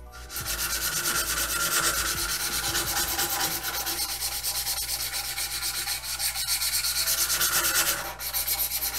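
Strip of sandpaper pulled rapidly back and forth, shoeshine-style, across a carved wooden fishing lure body held in a vise: a steady rhythmic rasping rub that stops about eight seconds in.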